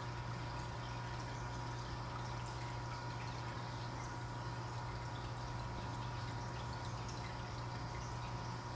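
Air-driven sponge filters in a goldfish aquarium bubbling steadily with small watery pops and trickles, over a constant low hum.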